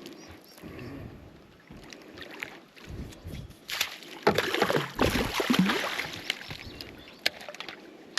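Water sloshing and splashing against a small boat, loudest for a few seconds in the middle.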